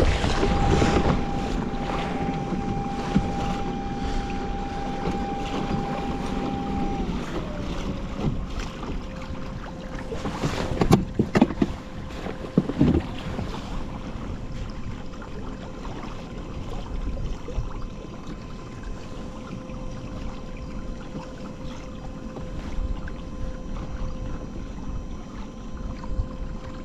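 A steady motor whine on a moving kayak that drops to a lower, steady pitch about seven seconds in, over a wash of water and wind noise. A few sharp knocks come around eleven to thirteen seconds.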